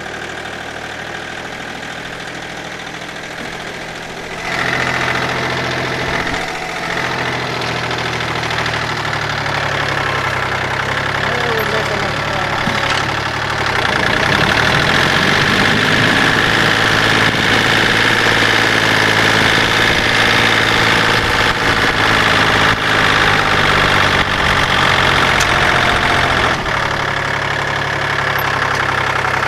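Kubota diesel tractor engine running while the tractor drives. It gets louder in two steps, about four seconds in and again near halfway.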